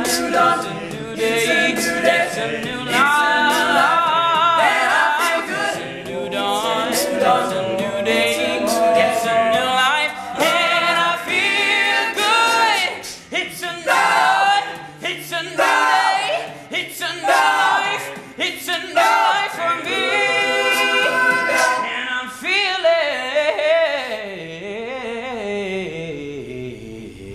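Male a cappella group singing in close harmony, voices only. Near the end a vocal line winds downward as the singing grows quieter.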